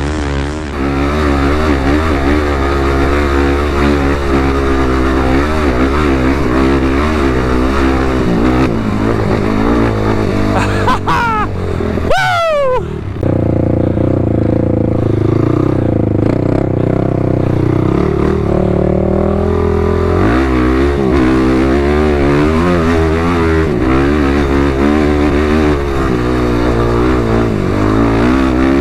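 ATV engine running under constantly changing throttle while riding on sand, its pitch wavering up and down. About eleven and twelve seconds in there are a few quick falling whines, after which the engine runs steadier.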